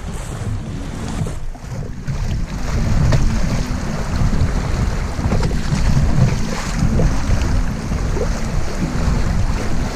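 Choppy river water rushing and splashing around a kayak moving through small breaking waves, with heavy low rumbling buffeting on the microphone; it gets louder about two and a half seconds in.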